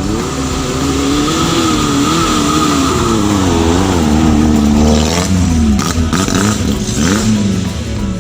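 Off-road jeep engine revving, its pitch rising and falling repeatedly. It drops away about five seconds in, then revs up once more briefly near the end.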